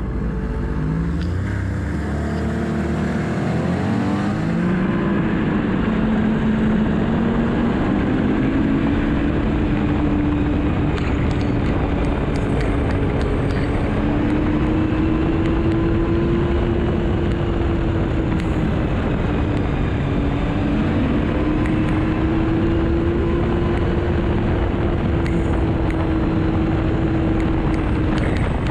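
Yamaha four-stroke snowmobile engine accelerating, its pitch climbing over the first several seconds, then cruising at a steady pitch with small rises and falls and a brief easing off about two-thirds through. A steady rushing noise runs under it.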